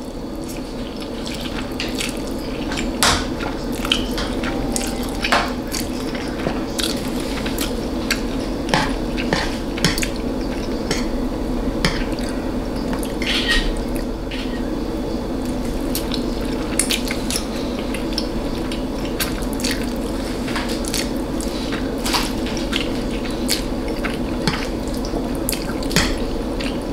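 Eating a meal of spicy noodles and steak: wet chewing and mouth clicks, with cutlery clinking against a plate, many short sharp clicks scattered throughout.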